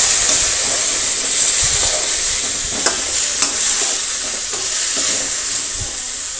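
Warm water sizzling as it hits a hot metal kadhai of roasted semolina and gram flour, while a slotted metal spatula stirs and scrapes the mixture into a paste. The hiss slowly dies down, with a few light scrapes of the spatula on the pan.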